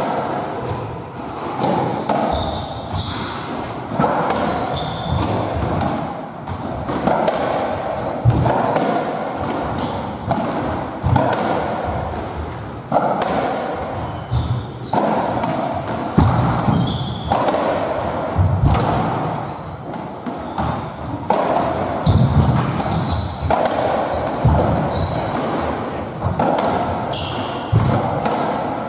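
Squash57 (racketball) rally on a squash court: the rubber ball is hit by the rackets and knocks off the walls and floor again and again, with short high shoe squeaks on the wooden floor, all echoing in the enclosed court.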